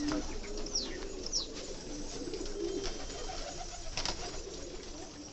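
A flock of domestic pigeons cooing, many low warbling calls overlapping, with a few thin, falling high calls about a second in.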